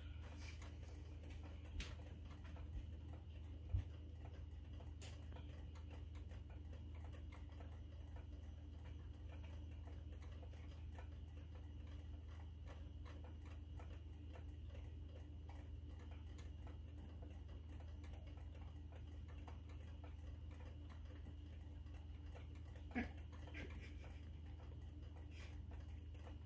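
Quiet room tone: a steady low hum with faint, dense ticking, broken by a few soft knocks, the sharpest about four seconds in and another near the end.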